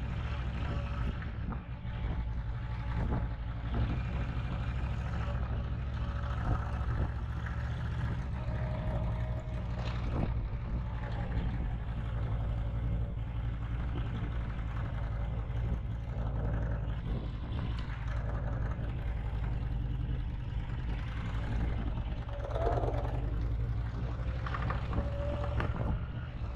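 Cruiser motorcycle engine running as the bike rides along, with wind rushing over the helmet-mounted microphone; a steady low rumble.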